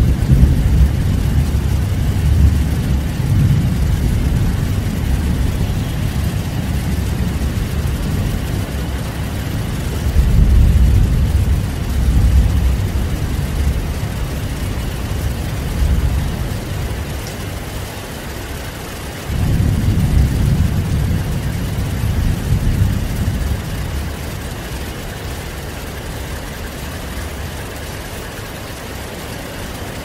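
Heavy rain falling steadily with rolling thunder. A deep rumble fades over the first few seconds, another swells about a third of the way in, and a sharper one breaks about two-thirds through and dies away slowly.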